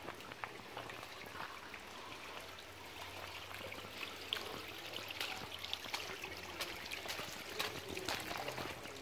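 Water from a leaking mains supply pipe running and trickling over stone steps and paving, with many small splashes that grow busier after a few seconds.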